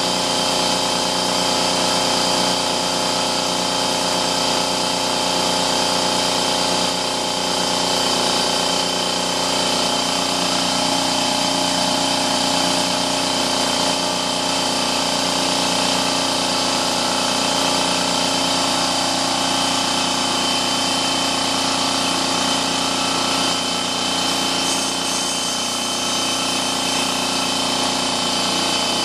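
Husky 33-gallon, 1.7 hp air compressor running steadily as it pumps up its tank, partway through filling from empty to 50 psi.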